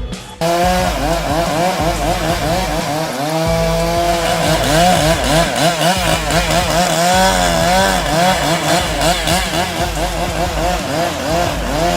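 Chainsaw running at high revs as it cuts, its engine pitch rising and falling again and again. It starts about half a second in.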